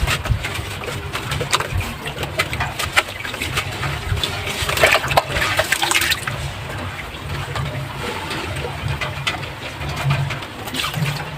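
Soft sand-cement crumbling and disintegrating in water: a continuous run of wet crackles and crumbly clicks with splashy trickling, densest and loudest about five seconds in.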